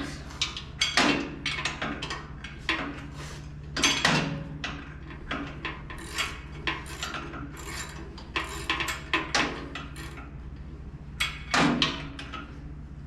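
Irregular metal clanks, knocks and ratcheting clicks of hand tools working out the shipping bolts that hold a power hammer to its pallet, over a steady low hum.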